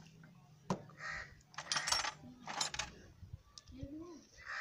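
Metal tools and small engine parts clinking and rattling in several short bursts, with one sharp click about a second in.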